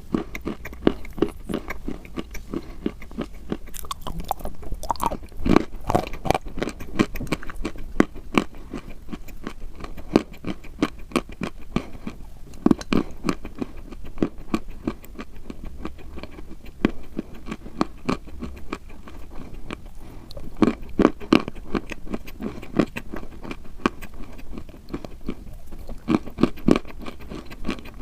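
Chalk being bitten and chewed: a dense, continuous crunching and crackling, with louder bouts of crunching every several seconds.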